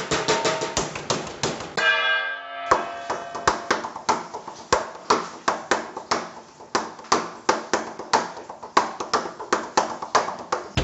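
Hands slapping and drumming on stainless-steel kitchen shelving and worktops in a fast, even rhythm. A short metallic ringing tone sounds about two seconds in.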